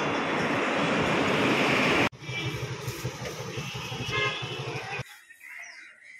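Road traffic: a passing vehicle's rushing noise building for about two seconds, then cut off abruptly, followed by a lower rumble with a few short high tones, and a much quieter stretch near the end.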